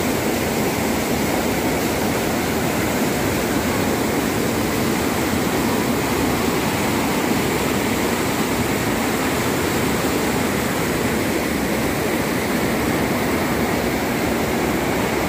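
Floodwater rushing through a lake's sluice gates and pouring over a weir: a loud, steady rush of turbulent water.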